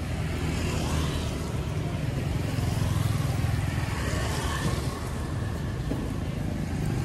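Street traffic, motorbikes and cars passing on a rain-wet road: a steady low rumble with the hiss of tyres on the wet surface.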